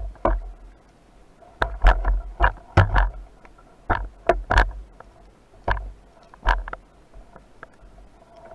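Irregular sharp clicks and knocks, heard underwater, from a speargun and a spearfisher's gear being handled close to the camera: about a dozen, some in quick pairs.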